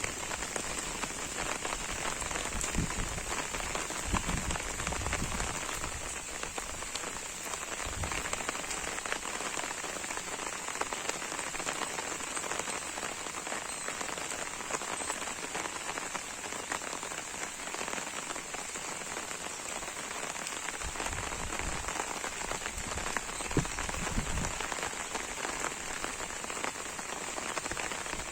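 Steady rain pattering on an umbrella, a dense hiss of fine drop ticks, with a few dull low thuds now and then.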